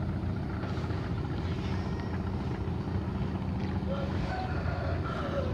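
Steady low hum of an engine running, typical of a boat motor idling, with wind on the microphone.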